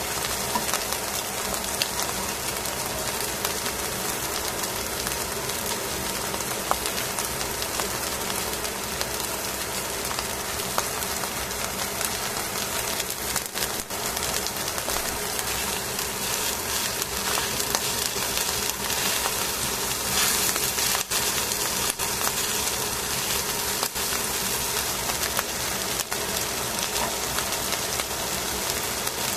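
Small whole fish sizzling in their own fat and juices on aluminium foil in a hot pan: a steady frying hiss with scattered crackles and pops.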